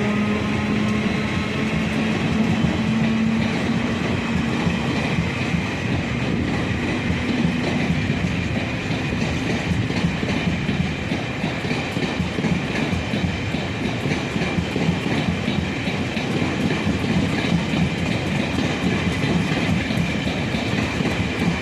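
A locomotive-hauled passenger train, led by E200-class electric locomotives, pulls out and its coaches roll past with a steady rumble and clickety-clack of wheels over rail joints. A low hum with a few steady tones fades out within the first few seconds.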